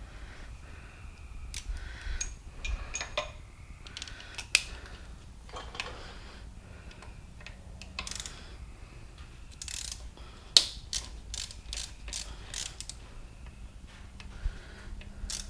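Hand ratchet wrench clicking while bolts are worked, mixed with metal tool clinks and short scrapes. In the second half comes a run of evenly spaced ratchet clicks, about two or three a second.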